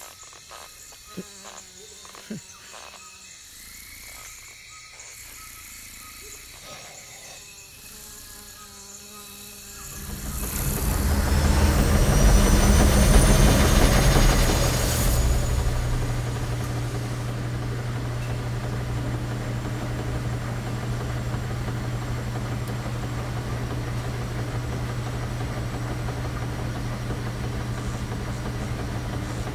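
Film sound design: soft scattered clicks over quiet ambience, then about ten seconds in a loud rushing swell with deep rumble that peaks and eases off. It settles into the steady low hum of a laundromat's front-loading washing machines running.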